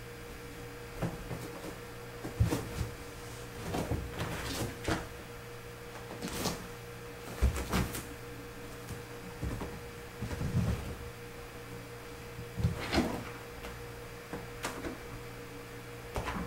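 Kittens jumping and climbing about on a bed and an exercise bike: a string of irregular knocks, soft thumps and rattles, the sharpest about two and a half and seven and a half seconds in, over a steady low hum.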